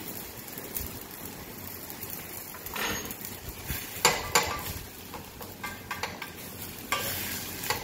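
A wooden spoon stirring raw rice and vegetables in a stainless steel saucepan. Several sharp knocks and clinks sound as the spoon hits the pan, the loudest about four seconds in.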